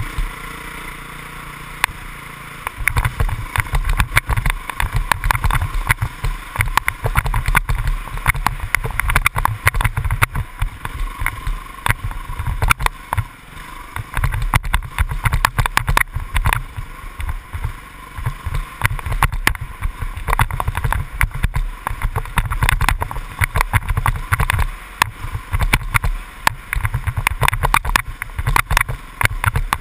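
Dirt bike engine running as it rides a rough trail, heard with constant irregular thumps and jolts from bumps and wind on the microphone; steadier for the first couple of seconds before the jolting sets in.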